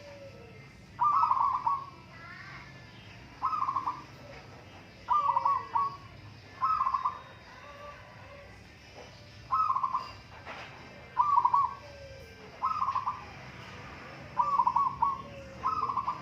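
Zebra doves (perkutut) cooing: about nine short, rolling, trilled coos spaced a second and a half to two seconds apart, as the birds call against each other. Fainter chirps from other small birds sound between the coos.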